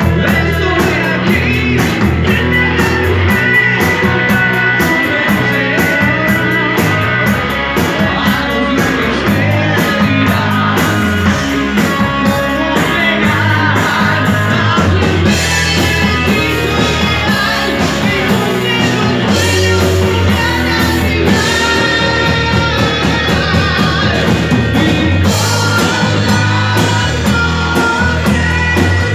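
Live rock band playing loudly: electric guitars, bass and drum kit, with a male lead singer.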